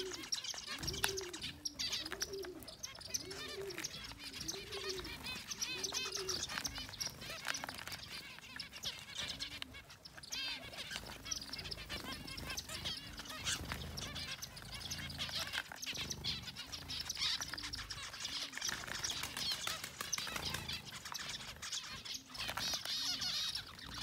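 A flock of zebra finches calling busily while feeding, with many short, high, overlapping calls. Underneath, a lower call repeats about once a second, clearest in the first few seconds.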